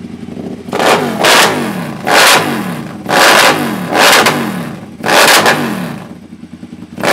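KTM LC8 V-twin engine, freshly started, revved in about six sharp throttle blips roughly a second apart, the revs falling back toward idle after each one. Really loud.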